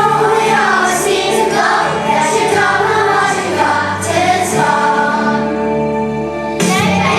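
Group of children singing a song together over musical accompaniment, as in a choir.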